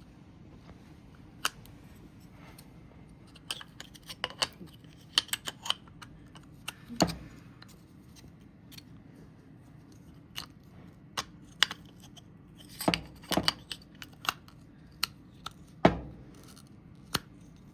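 Ruger 10/22 bolt and charging handle being worked into the receiver by hand: scattered small metallic clicks and scrapes of the parts against each other, with a few sharper knocks in the second half.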